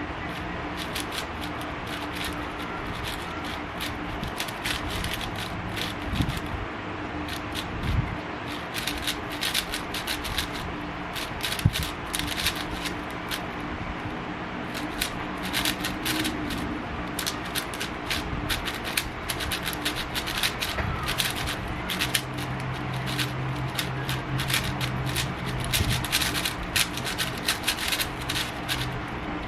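Speed cube being turned rapidly by hand, its plastic layers clicking and rattling in quick, irregular bursts of turns.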